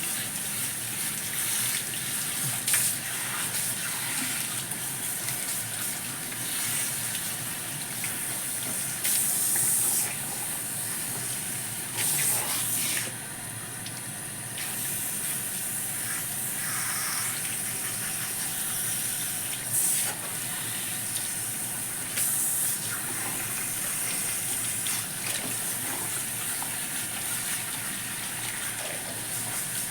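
Salon shampoo-bowl shower spray running steadily as it rinses a client's hair, with brief louder gushes now and then as the spray shifts across the head.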